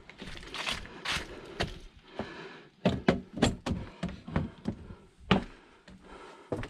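Footsteps and handling on a wooden cabin porch: a run of sharp knocks and thumps on the boards, the loudest a little after five seconds in.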